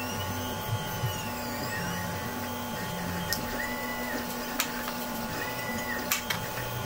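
A 3D printer running: its stepper motors hum at pitches that switch on and off and glide up and down as the head moves. Several sharp small clicks of clamps being handled come over it.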